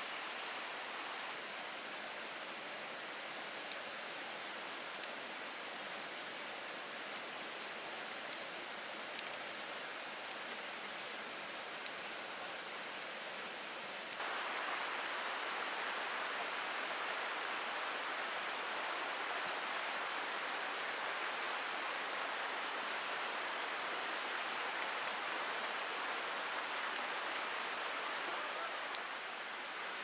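Steady rain falling, an even hiss with scattered faint ticks in the first half. About 14 seconds in the hiss jumps louder and brighter and stays there.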